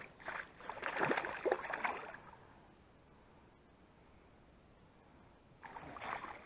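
Water splashing at the surface beside the boat for about two seconds as a small fish thrashes there, then quiet, then a brief splash on the water near the end.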